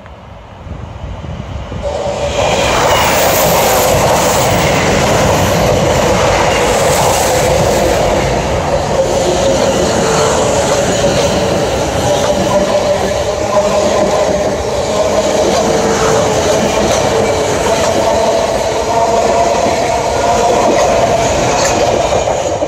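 A Class 450 Desiro electric multiple unit passes close by: a dense rumble of wheels on rails with a steady hum running through it. It builds up over the first two seconds and stays loud as the carriages go past.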